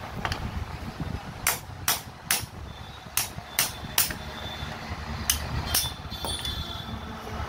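Hand hammer striking the steel chisel bit in a 5 kg electric demolition hammer, tapping the locked bit loose. It gives eight sharp metal-on-metal blows in three quick groups, two of three and one of two.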